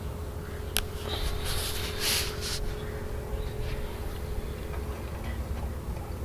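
Handling noises over a low steady hum: a sharp click about a second in, then brief rustling around two seconds in, as the wiring for the refrigerator compressor is readied.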